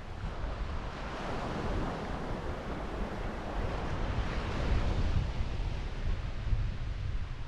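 Sea waves breaking and washing up a sand beach, the surf swelling and ebbing, with wind buffeting the microphone in low rumbling gusts.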